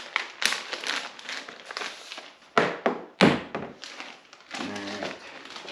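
Small parts being handled and set down: a run of sharp knocks and taps, the loudest two about two and a half and three seconds in.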